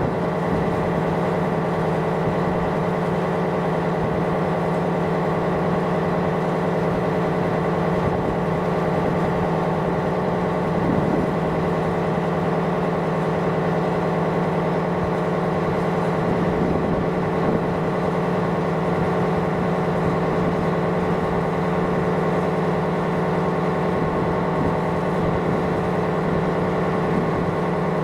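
Ship's engine machinery running at a constant speed: an unbroken, steady drone with several steady humming tones.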